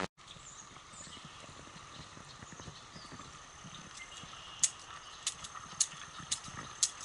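Footsteps of a hiker walking a wet, muddy trail: a regular step about every half second, starting a little past halfway, over a faint outdoor background with a few brief chirps near the start.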